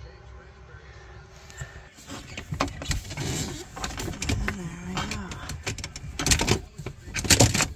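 Clicks, knocks and rubbing of parts being handled, after a faint steady hum in the first two seconds.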